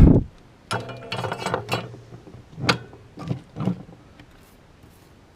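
A heavy thump, then a run of sharp clicks and rattles, with a few more near the middle: small electronic components and hand tools being handled and set down on a workbench.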